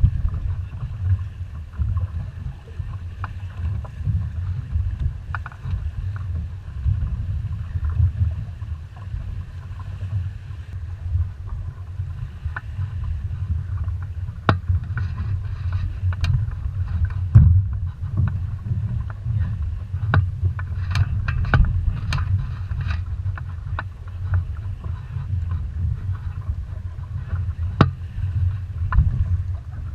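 Wind rumbling on the microphone of a camera mounted on a small sailing dinghy under way, with water washing along the hull. Scattered sharp knocks and clicks from the boat's gear come thickest from about halfway on.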